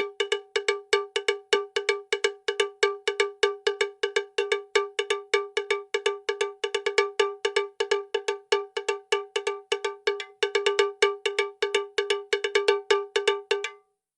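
Bell-like percussion struck rapidly on one pitch, about four to five strikes a second in an uneven rhythm, ending with a short ring-out near the end.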